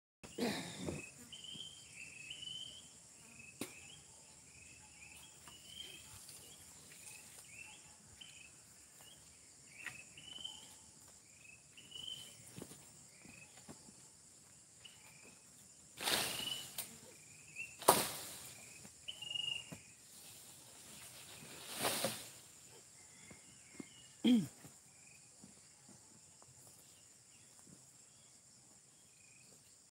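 Birds chirping in quick short calls, many in the first half and fewer later, over a steady high-pitched insect drone. A few brief noisy bursts break in over the second half, the loudest near the middle.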